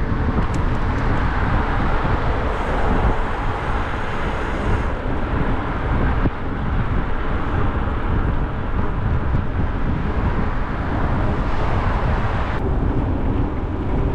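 Steady wind rush buffeting the microphone while riding a bicycle at speed, with a heavy low rumble throughout.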